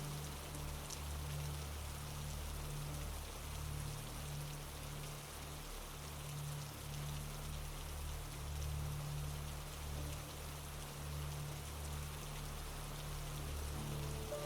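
Steady rain falling, an even hiss of many drops, over a low droning hum that swells and dips.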